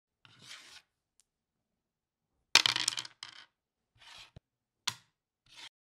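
Small hard objects clattering: several short bursts of clicks and rattles, the loudest and busiest about two and a half seconds in.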